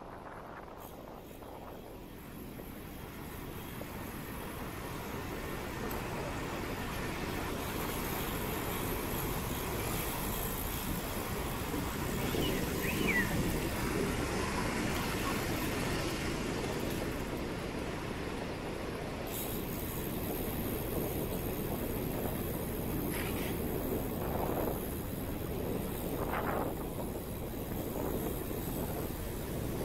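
Steady city traffic rumble, growing louder over the first several seconds and then holding steady.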